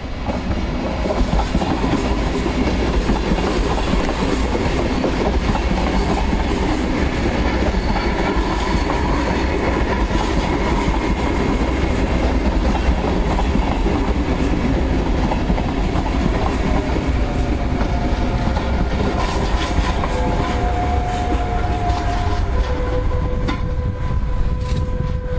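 NSB Class 70 electric multiple unit passing close by: the steady rumble of the train with clickety-clack of its wheels over rail joints. Steady whining tones join in about three-quarters of the way through.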